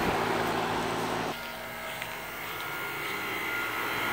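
Outdoor central air-conditioner condensing units running: a steady fan and compressor hum. About a second in the sound drops abruptly and the low hum gives way to a quieter steady whine, as a different unit is heard.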